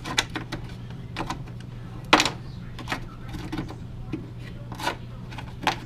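Small objects being handled and knocked together, with about eight scattered clicks and knocks, the loudest about two seconds in, over a steady low hum.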